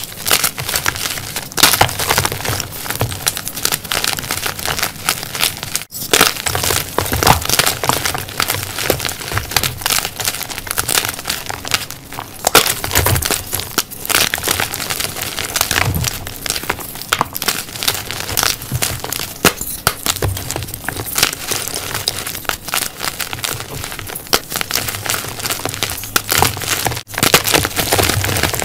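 Blocks of gym chalk (magnesium carbonate) crushed and crumbled by hand: a continuous dry crunching and crackling as the blocks break and powder. There are brief gaps about six seconds in and near the end.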